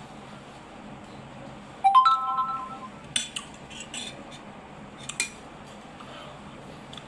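Cutlery striking a plate about two seconds in with a short ringing clink, followed by a few lighter clicks and taps of cutlery on the dish.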